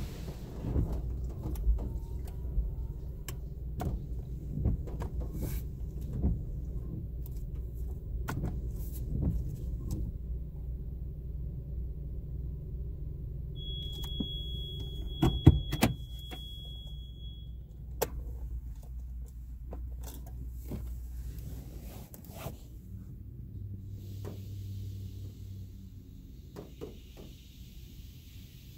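Touchless automatic car wash (PDQ LaserWash G5) spraying a car, heard from inside the cabin: a low steady rumble with many scattered knocks and drips. A little past the middle come two loud knocks and a thin high steady tone lasting a few seconds, and the rumble dies down after about twenty seconds.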